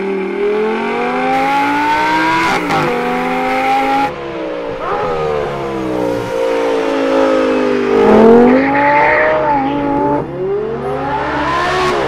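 Audi R8 GT's V10 engine through a Kline titanium race exhaust, revving hard under acceleration. Its note climbs in pitch and drops back several times.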